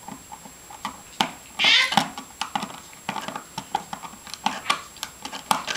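Light clicks and taps of small parts being handled as a screw is tightened onto a switch terminal, with a brief high wavering cry about two seconds in, the loudest sound here.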